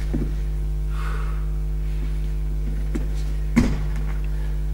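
Steady low electrical hum, with a few soft thuds of hands and feet on a wooden floor during a burpee; the clearest thud, about three and a half seconds in, is the feet landing as they jump in from plank to a crouch.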